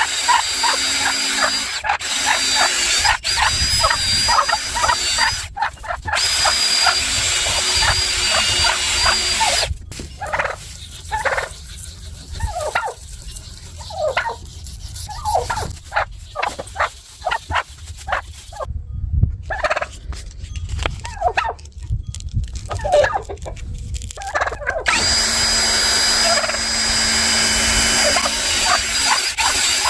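A power drill running steadily with a whine, typical of the machine sanding or polishing step of a headlight restoration. About ten seconds in it gives way to irregular rubbing strokes for roughly fifteen seconds, then the steady running returns.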